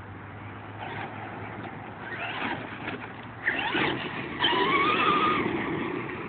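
E-Maxx RC monster truck's 775 electric motor setup whining under throttle, its pitch rising and falling, with tyres scrabbling on dirt. It gets louder about halfway through and holds a high, steady whine near the end.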